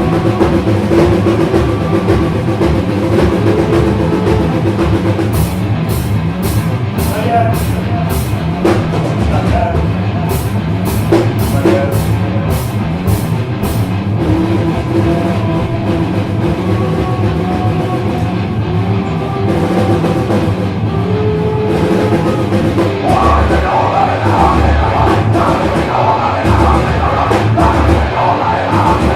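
Live punk/metal rock band playing loud, with full drum kit and guitars; two passages of evenly spaced sharp hits, about two a second, come in the first half.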